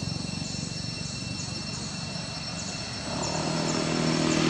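A motor engine hums low and steady, growing louder about three seconds in as it comes closer. Behind it runs a constant high insect drone with short repeated chirps.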